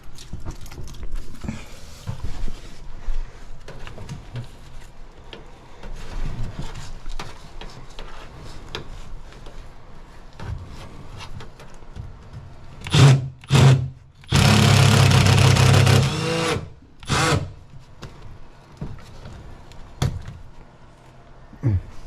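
Small knocks and handling clatter, then a cordless power driver runs in two short bursts and one steady run of about two seconds, with one more short burst after, backing out the screw that holds the old air handler to the wall.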